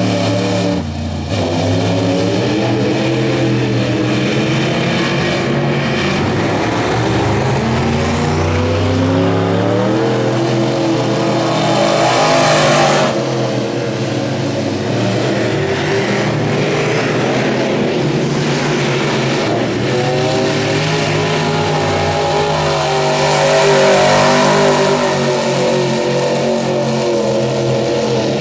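Crate late model dirt-track race car's V8 at full race speed on a qualifying lap. The engine pitch climbs and falls again and again as it revs through the straights and backs off for the turns. It is loudest as it passes close, about twelve seconds in and again near twenty-four seconds.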